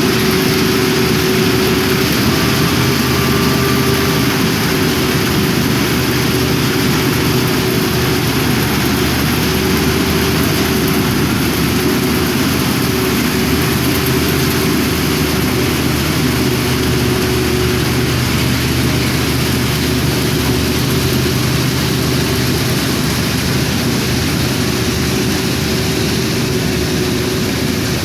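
Vishal 435 combine harvester running steadily under load while cutting paddy, a constant engine drone with a whine from the machinery that comes and goes.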